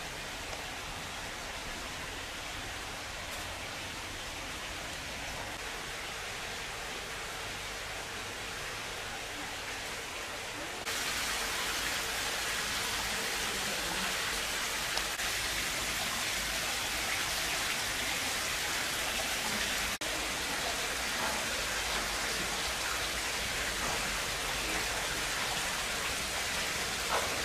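Steady rushing hiss, like falling water or spray, with no distinct events. It steps up louder and brighter about eleven seconds in.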